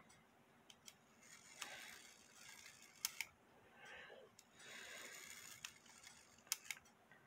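Near silence with a handful of faint, irregular clicks and soft rustling from a brass ship's bell clock movement being handled in the hands; the sharpest clicks come about three seconds in and again near the end.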